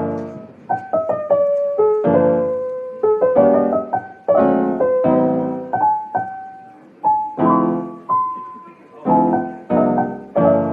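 Background piano music: chords and single notes struck one after another, each ringing and dying away.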